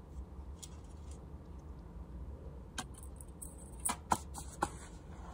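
Sharp clicks and light knocks, most of them in the second half, as the metal bottom cover of an HP EliteBook 840 laptop is set back on and pressed into place, over a faint low hum.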